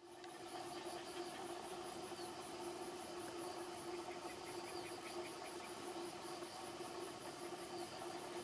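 Insects chirping in a high-pitched chorus of rapid, even pulses, over a steady low hum.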